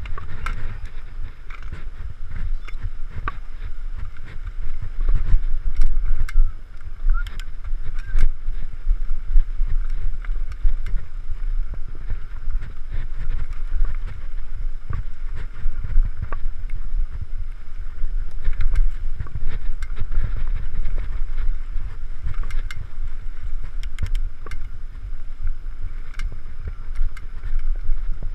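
Mountain bike riding down a dirt forest trail: a steady low rumble of wind on the microphone, with frequent sharp clicks and rattles from the bike jolting over roots and rocks.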